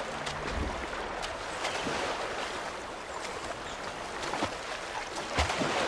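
River water running steadily, with small splashes and ticks throughout.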